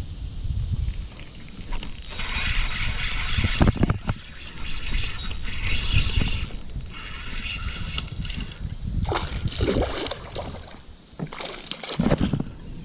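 Spinning reel cranked in spells, its gears and rotor turning, as a hooked spotted bass is reeled in; near the end the fish splashes at the surface.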